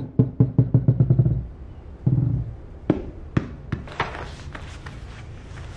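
A baby banging quickly on a plastic toy, a rapid run of knocks. A small ball then drops and bounces on the foam play mat, each bounce a sharp tap coming quicker than the last as it settles.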